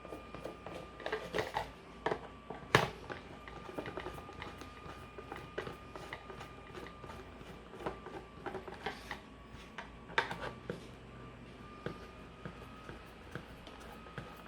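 Small scattered clicks and knocks of a plastic toy bubble machine's casing being handled and unscrewed, with one sharper click about three seconds in.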